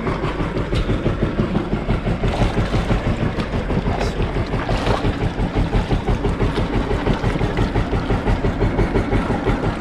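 Inboard engine of a wooden fishing boat idling alongside, running steadily with a fast regular beat.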